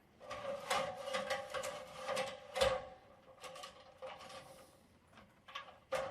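Metal ladder being handled and set up, giving a string of irregular clanks and knocks, each with a short metallic ring.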